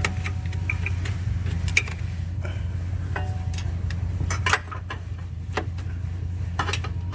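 Light metal clicks and knocks of hand-held parts and tools being handled, scattered through and coming more often near the end, over a steady low hum.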